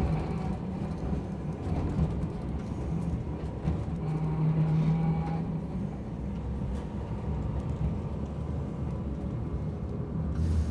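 Toden Arakawa Line streetcar heard from inside the passenger cabin as it runs and draws into a stop: a steady low rumble and hum of the motors and wheels on the rails. A short hiss comes near the end.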